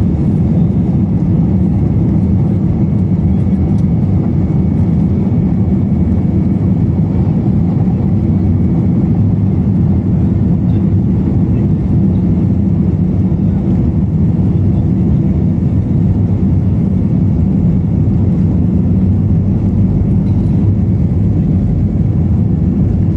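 Cabin noise of an Airbus jet airliner taxiing on the ground, heard from a window seat: a steady low rumble of engines and rolling wheels, with a faint steady whine.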